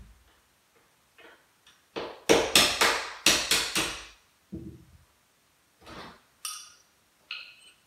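Hammer tapping a nail set against a steel door-hinge pin to drive it up out of the hinge: a quick run of about eight sharp metal taps a couple of seconds in, then a few single taps and metallic clinks near the end.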